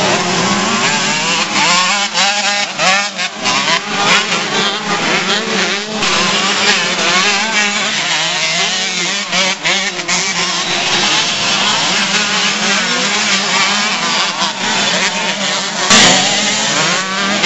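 Several motocross dirt bikes racing past, their engines revving up and down as the riders work the throttle through the corners. A brief loud knock near the end.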